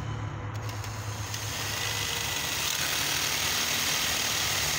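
Ryobi cordless drill running, its bit boring out a hole in a metal awning pole to enlarge it: a steady high whine with cutting noise that starts about a second in. A steady low hum runs underneath.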